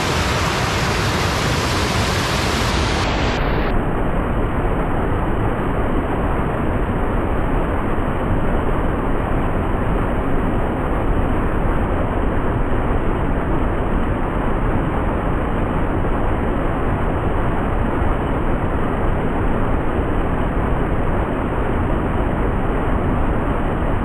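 Small waterfall: white water rushing steadily over rock ledges, a continuous, even noise without pauses.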